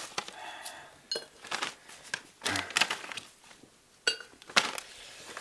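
Tableware clinking and knocking on a table: a string of separate short knocks and clinks as spoons, dishes and cups are handled.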